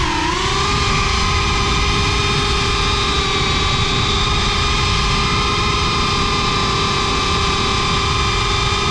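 GEPRC Cinelog 6S FPV quadcopter's motors and propellers whining steadily, with rushing wind noise underneath. The pitch dips briefly at the start, then holds nearly level at a cruising throttle.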